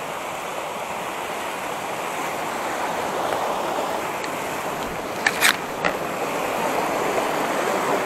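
A creek flowing steadily over its bed, with a couple of short sharp knocks a little past halfway.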